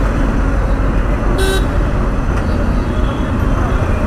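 Road traffic in a jam: a steady low rumble of engines and wind, with one short vehicle horn toot about one and a half seconds in.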